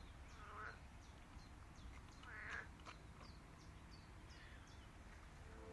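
Frogs croaking faintly at a reedy lakeshore, two short croaks about half a second and two and a half seconds in, over a steady run of small high chirps.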